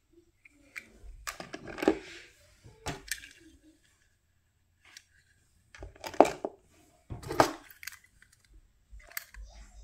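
Small diecast metal toy cars clattering and clicking against a hard plastic carrying case as they are handled and set into its slots, in several separate knocks with short quiet gaps between.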